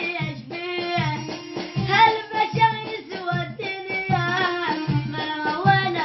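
Music: a high voice singing a melody over a steady drum beat with instrumental backing.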